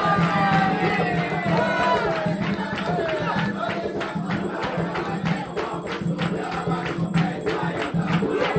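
Music: a group of voices singing a chant over a steady drumbeat of about three to four beats a second, with a crowd joining in.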